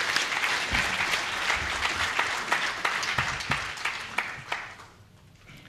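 Audience applauding, with dense clapping that dies away about a second before the end.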